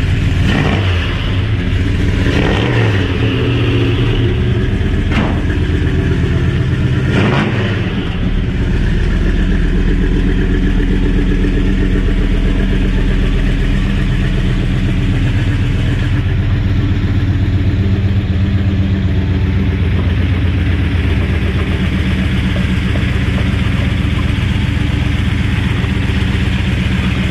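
1970 Ford F250's 427 big-block V8 with headers, running: revved a few times in the first eight seconds, then idling steadily.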